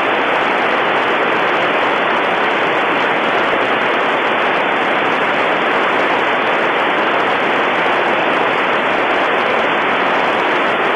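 FM radio receiver static: a steady, loud hiss with no signal under it, as the ISS downlink carrier is lost between transmissions. It switches on suddenly and cuts off suddenly near the end when the signal returns.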